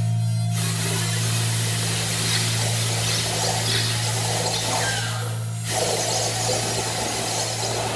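Electronic music over loudspeakers for a piece scored for a remote-controlled rock crawler: a steady low hum under a dense, noisy hiss. The hiss drops out for about half a second roughly five seconds in, then comes back.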